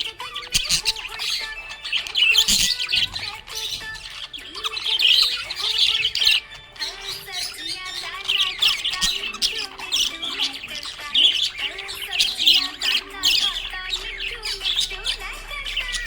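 Budgerigars chirping and chattering in quick, continuous runs of high chirps with squawks mixed in.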